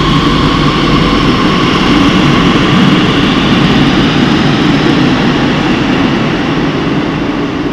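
Madrid Metro Serie 8000 train moving off along the platform: a steady loud rumble of wheels on rail, with the motor whine fading away at the start. The noise dies down near the end as the train enters the tunnel.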